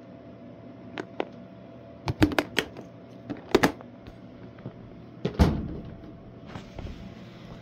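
A series of sharp knocks and clunks, in small clusters, the loudest a single thump about five and a half seconds in, over a faint steady hum.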